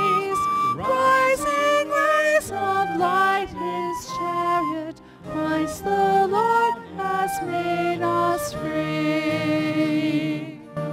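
Communion hymn in church: sung voices with instrumental accompaniment, the melody moving note to note.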